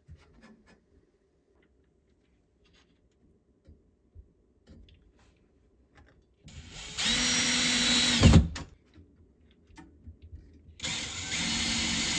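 Cordless drill/driver running in two short bursts, putting screws through a metal microwave support bracket into the cabinet's wooden floor. The first burst ends in a brief louder rattle; the second starts near the end.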